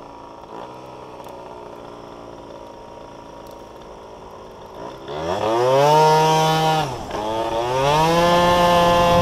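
Yamaha Jog 50 cc two-stroke scooter, fitted with a different carburettor, idling quietly. About five seconds in it is opened up hard and pulls away: a high, buzzing engine note climbs steeply and then holds steady at high revs. The note drops briefly, then climbs and holds high again.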